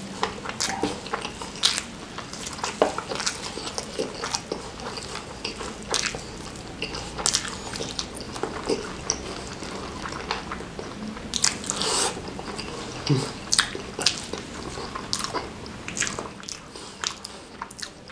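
Close-miked chewing and biting of crispy fried chicken coated in chili sambal, with irregular sharp crunches throughout.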